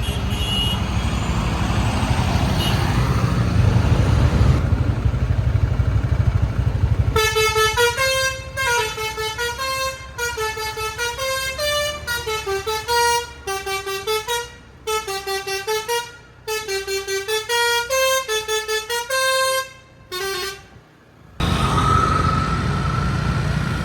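A bus engine runs under road noise. About seven seconds in, a Basuri telolet horn plays a fast multi-note melody of quick stepping tones for about thirteen seconds, with short breaks between phrases. Near the end the engine rumble returns with a rising tone.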